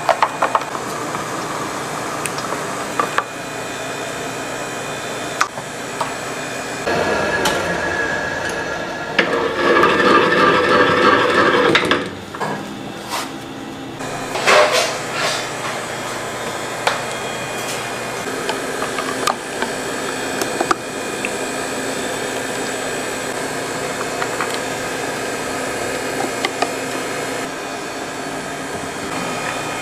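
Spatulas stirring and scraping thick cake batter against stainless steel bowls, with scattered knocks on the metal. A louder stretch of steady machine-like noise runs from about seven to twelve seconds in.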